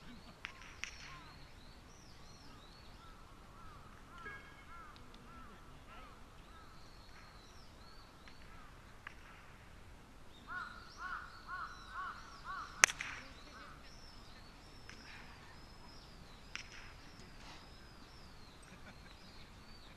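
Birds calling and chirping throughout, with a run of about six repeated harsher calls shortly after halfway. Just after those calls comes one sharp click, the loudest sound, a park golf club striking the ball.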